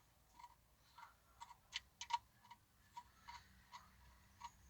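Faint, irregular small clicks, about a dozen, from hands working the clamps on a car amplifier's power-wire terminals.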